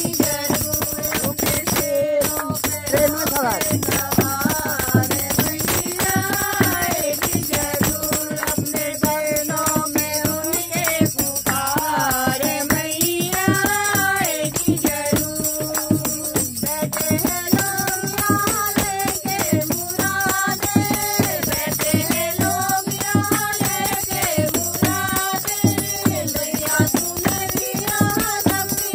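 Women singing a Hindu devotional bhajan to Mata, the mother goddess, with steady rhythmic hand clapping keeping the beat.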